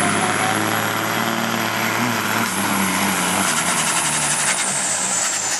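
Altered stock semi truck's diesel engine running hard under load, pulling a weight sled. A high whistle rides over it and drops in pitch about four and a half seconds in.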